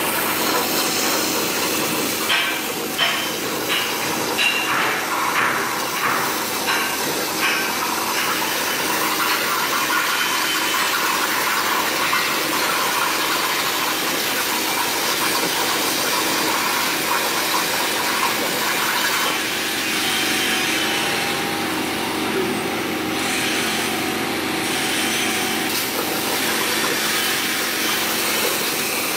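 CNC plasma cutter's torch hissing steadily as its arc cuts through steel plate. A few seconds in, a run of short pops, about two a second, lasts for some five seconds.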